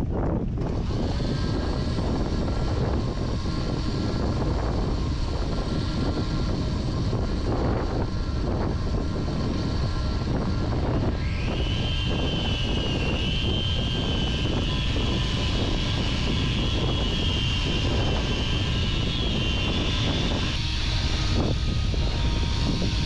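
Shop vacuum switched on about half a second in and running with a steady motor whine; about eleven seconds in an electric sander hooked to its hose starts, its higher whine rising and holding as it sands the wooden foredeck. Wind buffets the microphone throughout.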